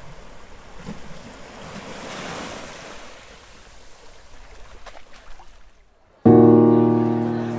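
A soft surf-like hiss of waves swells and fades. About six seconds in, a loud keyboard chord strikes and rings down, the start of the soundtrack music.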